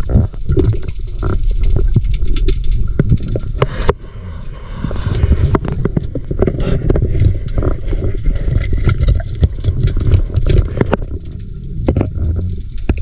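Underwater sound on a GoPro's microphone while diving among kelp and rocks: a low rumble of moving water with frequent clicks, knocks and scrapes, and a brief hissing rush about four seconds in.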